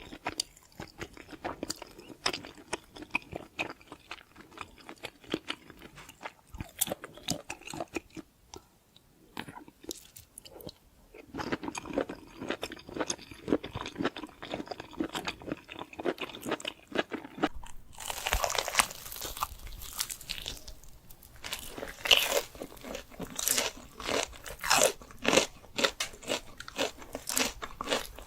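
A person chewing and biting into crunchy food close to the microphone, with irregular crunches throughout; the bites get louder and sharper about two-thirds of the way in.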